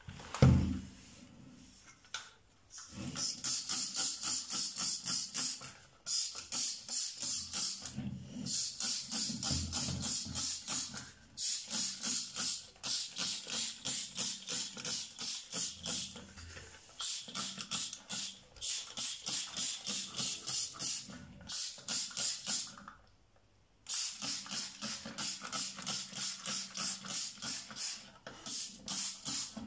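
Hand trigger spray bottle pumped rapidly, about three to four hissing squirts a second in long runs with short pauses, spraying foaming degreaser onto a metal mesh range-hood grease filter. A single thump about half a second in.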